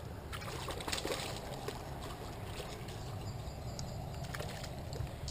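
Light splashing and trickling water as a hooked largemouth bass is reeled in and landed at the bank, with scattered small clicks.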